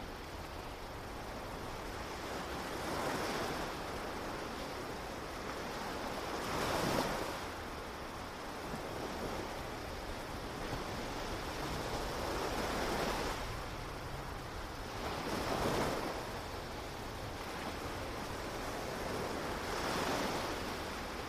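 Ocean surf washing onto a beach: a steady hiss of water that swells and fades as five waves break, a few seconds apart.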